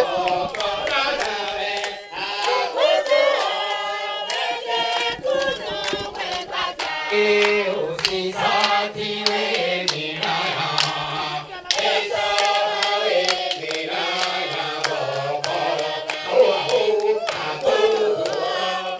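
A group of voices singing together around a lead singer on a microphone, with rhythmic hand-clapping.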